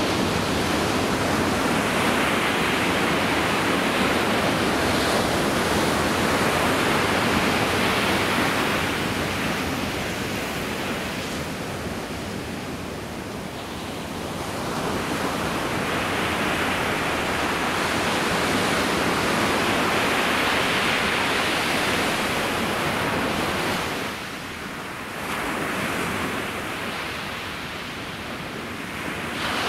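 Ocean surf: waves breaking and washing up a sandy beach in a steady rushing noise that swells and eases with each wave, with a few quieter spells between.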